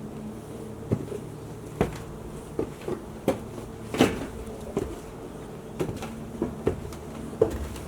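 A dozen or so sharp knocks and clicks at an irregular pace, roughly one a second, over a steady low hum.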